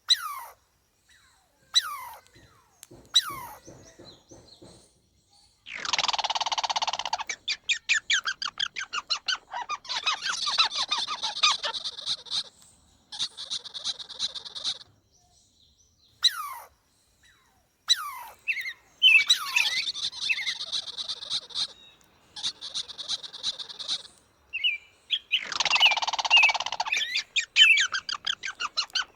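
Birds chirping and calling: a few quick falling whistled notes, then loud fast trills and rapid series of sharp chips, broken off by sudden silences.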